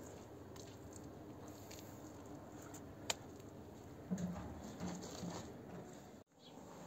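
Hands patting and smoothing wet mud mortar inside a brick wood-stove firebox, faint soft pats and squelches. A sharp click comes about three seconds in and a few short low hums a second later; the sound drops out briefly near the end.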